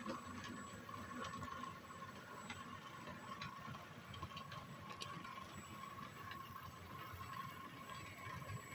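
Model diesel locomotives running along the layout track: a faint, steady motor-and-gear whine over a low rumble, with scattered light clicks from the wheels and track.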